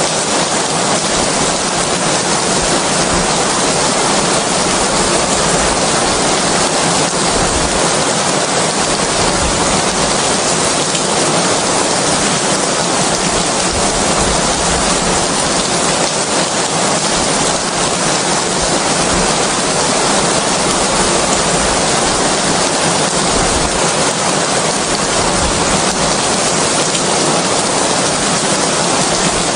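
Steady rain, an even hiss with no breaks.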